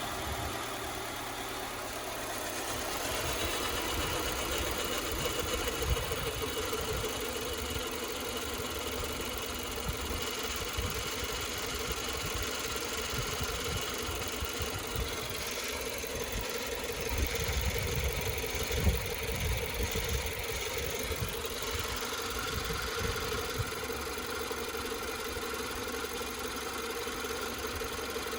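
Car engine idling steadily while its cooling system is burped, running so the coolant circulates and trapped air works out through the radiator funnel. A sharp knock comes about 6 seconds in and another about 19 seconds in.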